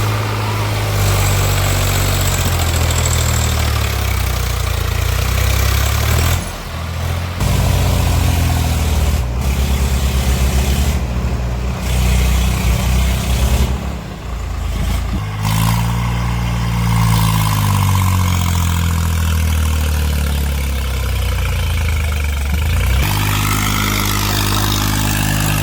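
Heavy diesel engine running and being revved, its pitch rising and falling several times, with a couple of brief drops in level.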